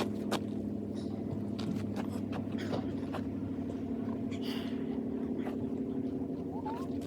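Steady engine and road hum heard from inside a moving vehicle, with frequent small clicks and rattles.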